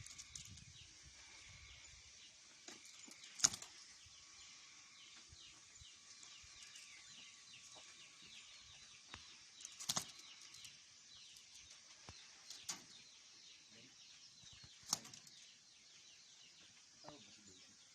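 A bird fluttering its wings, with a few sharp clicks or taps about every two to six seconds over a faint, busy patter of small high sounds.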